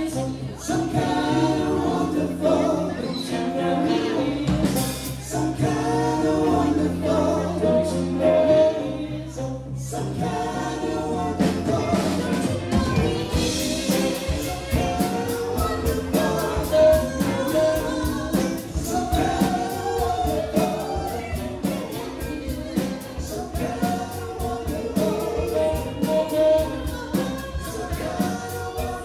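Live band playing a song, a woman singing lead over electric guitars, bass guitar and drum kit. After an opening carried by long held bass notes, the drums settle into a steady, busy beat about twelve seconds in.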